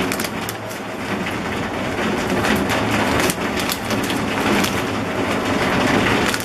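A plastic bag crinkling as crushed rock sugar is shaken out of it into a glass jar. The sound is a continuous rustle thick with small crackles and clicks.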